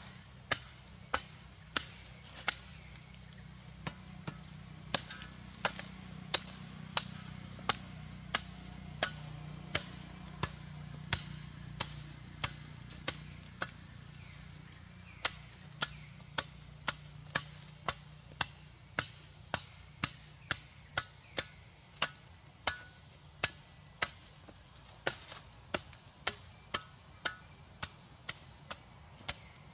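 Steady high-pitched insect drone, with sharp clicks at an even pace of a little under two a second.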